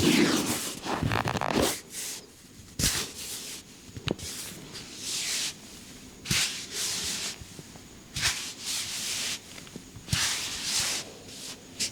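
Hands rubbing over skin and hair during a head and back massage: a run of swishing rubs, each about a second long, with a few short sharp taps between them.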